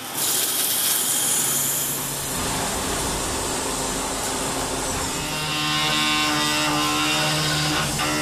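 CNC milling machine cutting a block held in a vise under coolant spray, with a steady machining noise. It has a strong hiss in the first couple of seconds, and a steady pitched spindle whine of several tones comes in about five seconds in.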